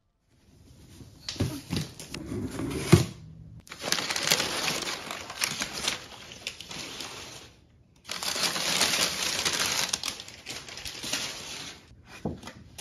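Crumpled kraft packing paper rustling and crinkling as it is handled and pulled out of a cardboard box. It comes in three long stretches with brief pauses, about three and a half and eight seconds in.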